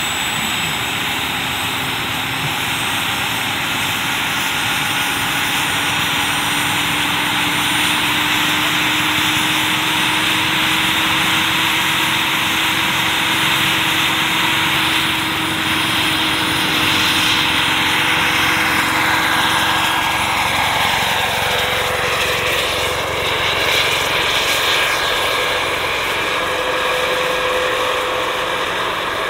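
Turbine engine and rotors of a giant RC model Bell 206 JetRanger helicopter running steadily, with a high turbine whine over the rotor noise. About twenty seconds in the tones begin to slide as the helicopter lifts off.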